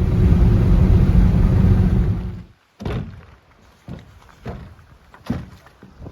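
Wind buffeting the microphone as a loud, low rumble, cut off abruptly about two and a half seconds in. It is followed by quieter, irregular soft knocks and taps.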